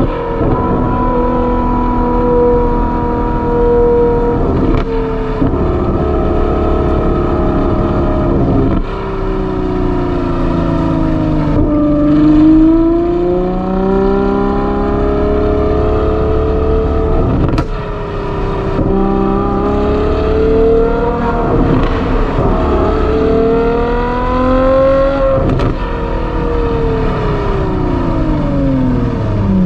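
Ferrari 812 GTS's naturally aspirated V12 through a Novitec aftermarket exhaust, heard from the driver's seat while driving: the engine note climbs under acceleration and falls off when lifting, with sudden jumps in pitch at gear changes and a stepped drop of downshifts near the end.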